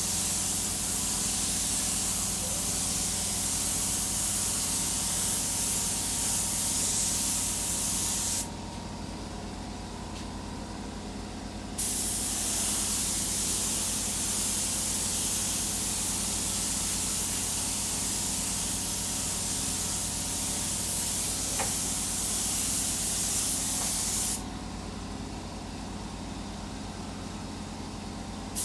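Spray gun hissing as it sprays epoxy primer, the trigger let go twice for a few seconds each time, with a steady machine hum underneath throughout.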